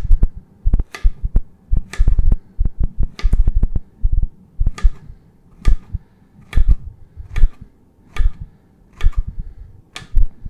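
Serrated knife slicing a zucchini into rounds on a plastic cutting board: each slice ends in a dull thunk of the blade hitting the board, about one a second, a dozen or so in a row.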